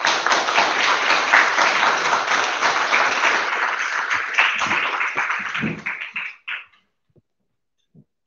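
Audience applauding, a dense patter of many hands clapping that dies away about six and a half seconds in with a last few claps.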